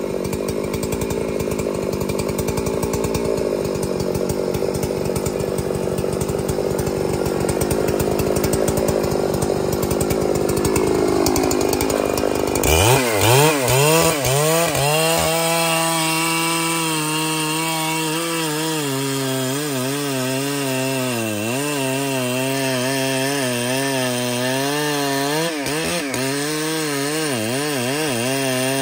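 Big Husqvarna two-stroke chainsaw cutting into a trembesi trunk under load. About twelve seconds in it comes free of the cut and runs on at high revs with a clear engine note, its pitch wavering up and down.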